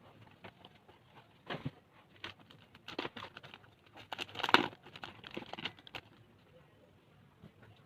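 Hands handling the packaging and contents of a DVD box set: irregular rustling, crinkling and light clicks, loudest about four and a half seconds in.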